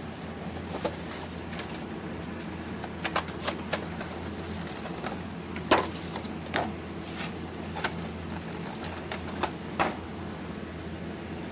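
Scattered clicks and taps at irregular intervals, from the packaging of a die-cast starship model being handled and opened, over a steady air-conditioning hum.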